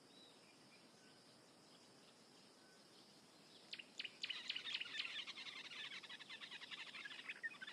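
Faint bush ambience, then about halfway through a bird starts a fast, rapid chattering run of calls that keeps going.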